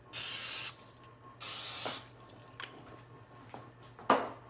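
Aerosol nonstick cooking spray (Pam) hissing onto a waffle iron's plates in two short bursts of about half a second each, greasing it so the cheese waffle won't stick. A sharp knock near the end.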